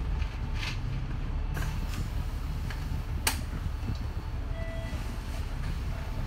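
Interior noise of a bus on the move: a steady low rumble of engine and road, with one sharp click or rattle a little over three seconds in.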